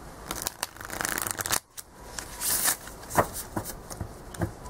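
A tarot deck being riffle-shuffled: a rapid run of card flicks lasting about a second and a half, a second shorter flurry a moment later, then a few single knocks near the end.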